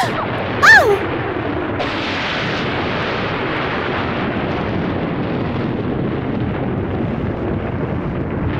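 Heavy rain pouring steadily with thunder rumbling, thickening about two seconds in. A woman gives a short cry just under a second in.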